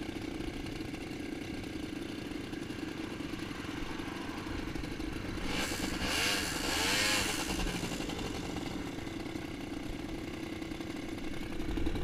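ATV engine idling steadily close by. From about five and a half to eight seconds another ATV passes right alongside, growing louder and then fading, its engine note rising and falling as it goes by.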